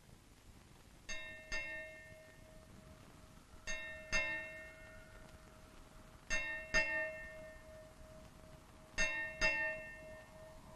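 Temple bell struck in double strokes, four pairs about two and a half seconds apart, each stroke left ringing.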